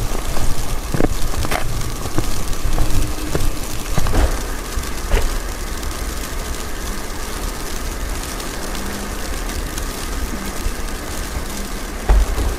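Wind buffeting a phone's microphone on an exposed mountain pass: a gusty low rumble, strongest in the first four seconds, then settling to a steadier rush with scattered small clicks.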